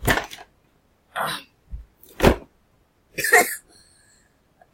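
A series of about five short, breathy grunts and puffs of effort, with a dull thud in between, as a heavy all-metal robot arm kit is lifted.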